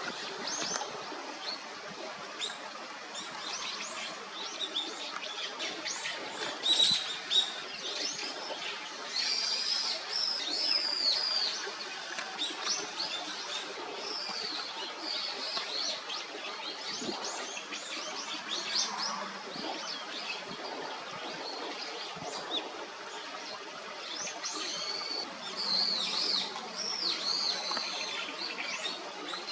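Small birds calling outdoors: many short, high chirps in quick runs, busiest in two stretches, over a steady background hiss. Two short, sharp, louder sounds come about seven seconds in.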